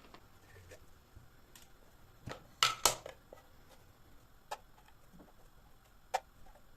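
A few sharp clicks and knocks spaced apart, the loudest a pair close together about three seconds in.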